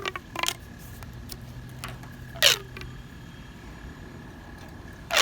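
Plastic pop tube being pulled and pushed, giving a few short pops, each falling quickly in pitch; the loudest comes about two and a half seconds in.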